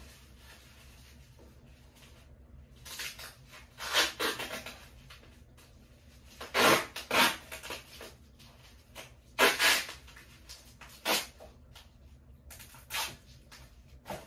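Packing sounds: about six short rustles and scrapes as things and packaging are handled, the two around the middle the loudest.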